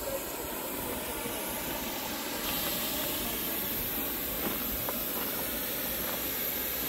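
Replica early steam locomotive standing and venting steam: a steady hiss that grows louder about two and a half seconds in.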